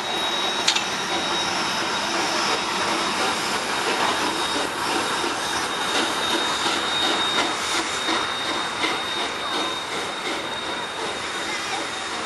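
Czechoslovak class 475.1 steam locomotive running slowly through a station with its train, with a rhythmic beat from the running gear and a steady high-pitched squeal of wheels on the rails.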